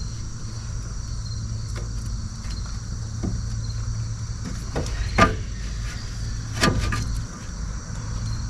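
Short metallic knocks and clicks as rear brake pads are worked into the caliper bracket's clips, the sharpest about halfway through and another a second and a half later, over a steady low hum and insects chirring.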